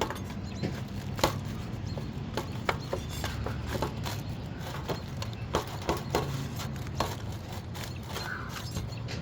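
Scattered sharp knocks and clicks of hand work on an asphalt-shingle roof during a box vent replacement, one to three a second at irregular spacing, over a steady low hum.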